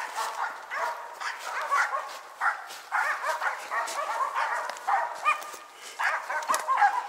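Several Karelian-Finnish laikas barking in repeated clusters with short pauses, baying at a marten they have found.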